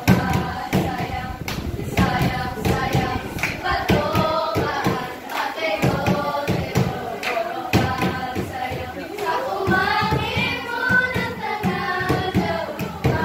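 A group of children singing a folk song together, with sharp beats about twice a second keeping time.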